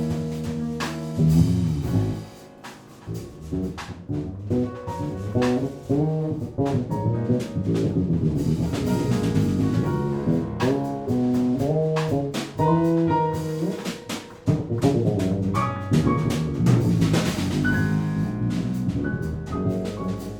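Jazz quartet of saxophone, piano, bass and drums playing live. A held chord breaks off about a second in, then busy melodic lines run over drums and cymbals.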